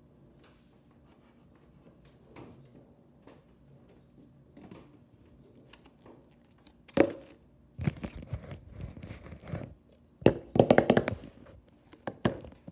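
Plastic slime jars being handled on a stone countertop: a sharp click about seven seconds in, then irregular clusters of clicks and rustling, loudest a little past the ten-second mark.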